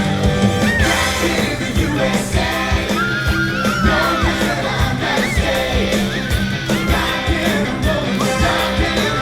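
Upbeat stage-show music with a band and a singing voice over a steady beat.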